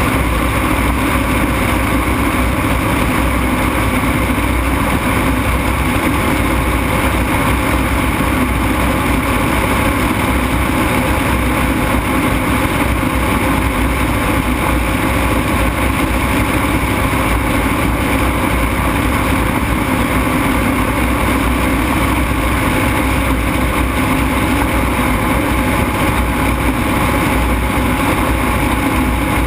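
Ultralight aircraft engine running steadily at full power during takeoff and climb-out, loud and close.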